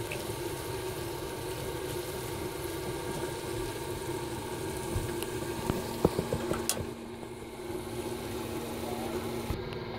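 Steady mechanical hum with a few short knocks of a spatula against a frying pan about halfway through, as fried rice is stirred.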